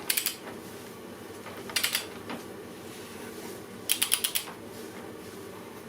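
Ratchet of a torque wrench clicking in three short, rapid runs as the clutch hub nut is pulled up toward about 127 N·m.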